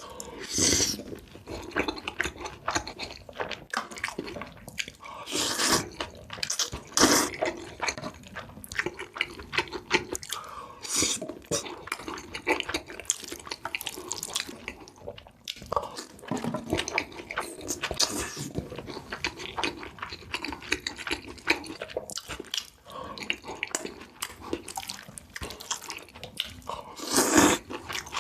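Close-miked wet eating sounds: a steady run of chewing, smacking and slurping, with several louder bursts.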